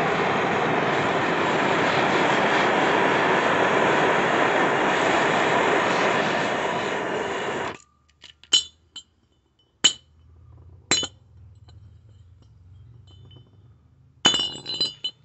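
A steady, loud rushing roar that cuts off suddenly about two-thirds of the way through. Then a steel claw hammer strikes a rusted-on steel pulley and shaft with ringing metallic blows: three single strikes about a second apart, then a quick run of strikes near the end.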